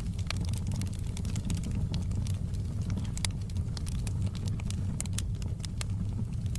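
Wood fire burning in a fireplace: a steady low rumble of flames with frequent irregular sharp crackles and pops from the logs.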